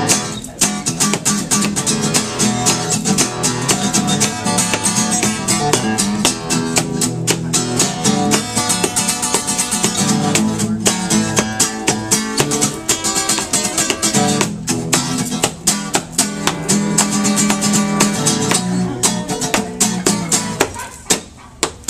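Solo acoustic guitar in an instrumental break between sung verses, played hard with fast, rhythmic strumming. The playing thins out briefly near the end.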